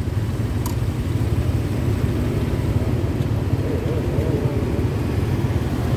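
Motorbike riding along the road: a steady low rumble of engine and rushing air.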